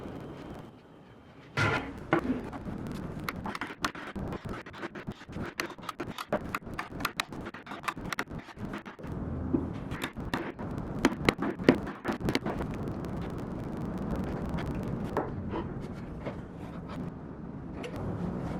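Hand tools working wood for a dovetail joint: a long run of irregular sharp taps and scrapes, then a steadier scraping stretch from about the middle on.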